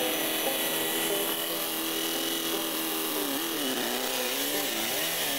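Small engine of a homemade go-kart running as it drives past, holding a steady note at first, then rising and falling in pitch through the second half as the throttle changes.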